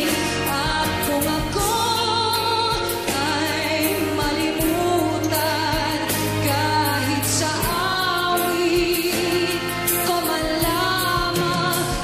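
Woman singing a held, wavering melody with vibrato into a handheld microphone, over live instrumental accompaniment with a steady beat.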